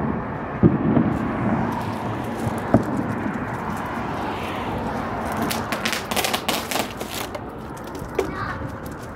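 A string of firecrackers going off in a rapid crackling run of sharp pops for about two seconds near the middle, over a steady background noise with a few dull thumps earlier on.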